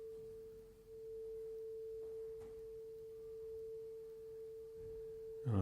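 Crystal Tones azestolite-and-platinum crystal singing bowl tuned to A, sounding one steady, pure tone that dips briefly about a second in and then holds.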